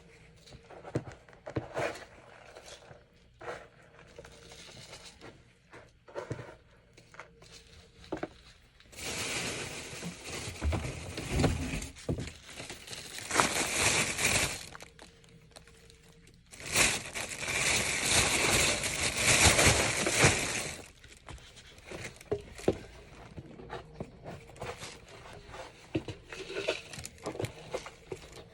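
Cat litter box being cleaned: scattered scrapes and crinkles, with two longer, louder stretches of rustling and crinkling, one about a third of the way in and one past the middle.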